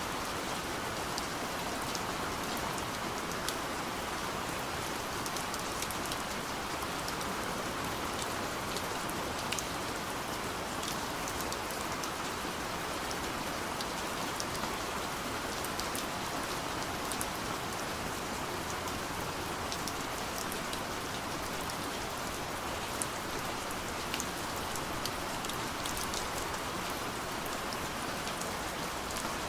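Steady soft rain falling on a window, an even hiss with many small drop ticks scattered through it.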